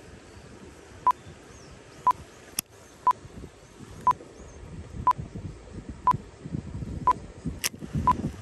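Short electronic beep at one steady pitch, repeating exactly once a second, eight times from about a second in, with two sharp clicks between the beeps, over a low wind rumble.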